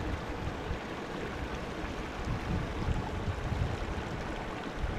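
River water running over and between boulders, a steady rushing hiss, with wind rumbling unevenly on the microphone.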